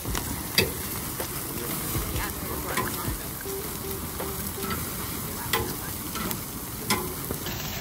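Split-log wood fire crackling under steaks on a steel grill grate, with a steady sizzle from the meat and sharp pops every second or so.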